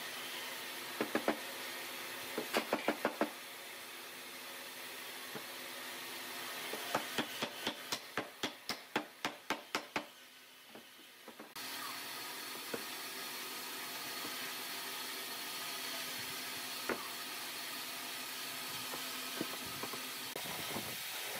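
Wooden mallet knocking glued wooden joints of a table base together, in short runs of quick strikes: a few about a second in, several more shortly after, then a longer run of about a dozen that grows fainter. Later only a steady hiss with an occasional faint tap.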